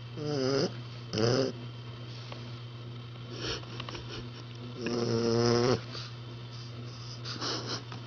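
A sleeping puppy snoring: about five snores a second or two apart, several with a pitched, squeaky tone. The longest and loudest comes about five seconds in.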